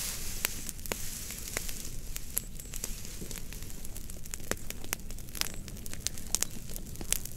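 Fire crackling, with frequent irregular sharp pops over a steady hiss.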